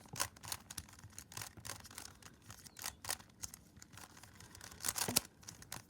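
Plastic speed cube being turned quickly during a solve: a run of fast, irregular clicks and clacks as the layers snap round, with one louder clack about five seconds in.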